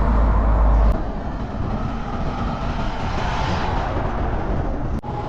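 Strong gale-force wind buffeting the microphone: a steady rushing noise with a heavy low rumble in the first second that then eases. The sound cuts out for an instant near the end.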